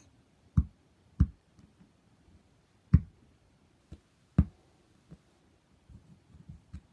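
A few dull knocks at irregular intervals, the four loudest spread over the first four and a half seconds and a few fainter taps near the end.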